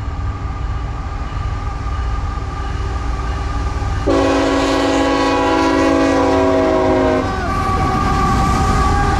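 CSX ET44AH freight locomotive sounding its horn: one long, steady multi-note blast of about three seconds, starting about four seconds in, over the low rumble of the approaching train.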